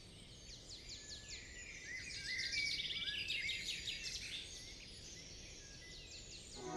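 Birds chirping and trilling, several calls overlapping, loudest a couple of seconds in and thinning out near the end.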